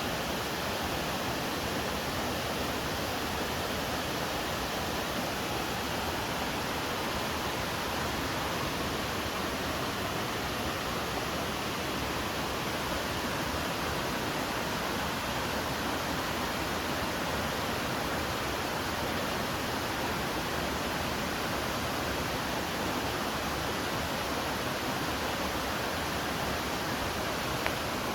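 Waterfall: water falling and rushing over rocks, a steady even roar with no breaks.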